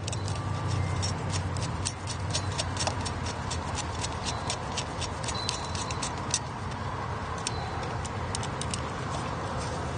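Screwdriver driving steel screws into a metal electrical box and its mounting bracket: runs of quick, light metallic clicks, thickest in the first half and again near the end, over a steady low background rumble.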